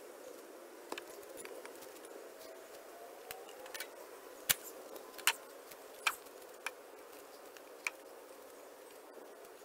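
A few scattered sharp knocks and clicks of wood against wood, the loudest about halfway through, as a heavy rough-sawn walnut slab is slid off a trailer and laid down on wooden spacer blocks.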